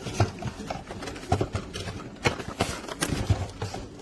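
Product packaging and Nespresso coffee pods being handled: irregular knocks, taps and clicks with rustling in between.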